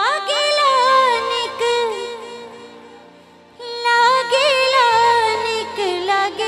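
Live Bhojpuri devotional song opening: a female singer's wordless phrases that glide up and bend through ornaments over held low keyboard notes. The first phrase fades out, and a second comes in strongly about halfway through.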